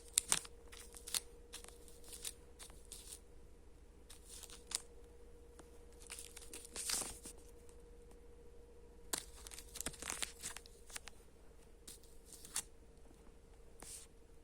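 A candy wrapper crinkling and rustling in irregular short bursts, loudest about seven and ten seconds in.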